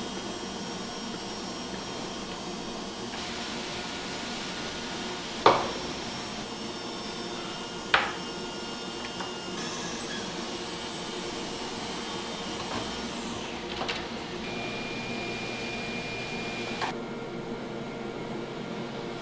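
Steady hum and hiss of a room with running appliances, carrying a few thin steady tones. Two sharp knocks come about five and a half and eight seconds in, with a few faint clicks later.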